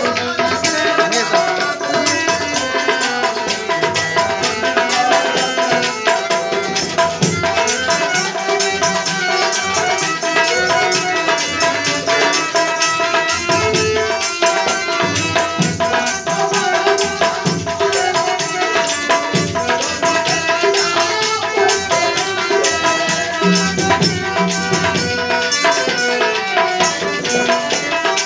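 Harmonium playing sustained melody notes over a busy rhythm on hand drums and a clay pot struck as a drum, in Kannada folk devotional style.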